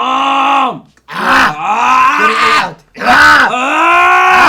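A person's loud, drawn-out vocal cries: three long wails or yells, each held and bending in pitch, with short breaks about a second and three seconds in. This is mock panic in a comedy bit.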